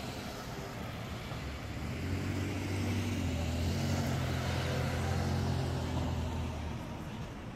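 A car drives past close by: its engine hum and tyre noise build up about two seconds in, are loudest midway, and fade near the end.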